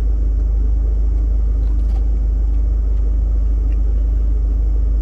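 Steady low rumble inside a car cabin with the engine running.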